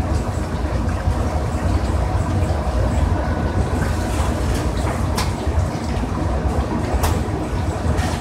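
Steady low rumble of commercial kitchen equipment running, with a few brief knocks or clatters over it.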